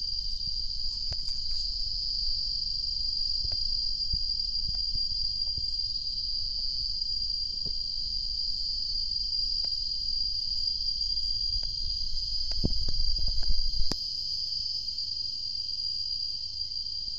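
A steady, high-pitched insect drone that runs on without a break. A low rumble swells briefly about two-thirds of the way through, and a few faint clicks are scattered through it.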